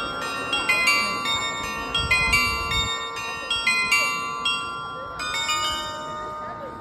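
The Hameln Hochzeitshaus glockenspiel, rows of fixed bells on the building's gable, playing a melody. The struck notes come about two or three a second, each ringing on over the next, and fade away near the end.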